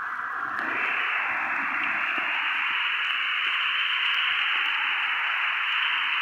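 Steady hiss of heavy monsoon rain falling, with no distinct drops; about a second in it turns a little louder and brighter and holds there.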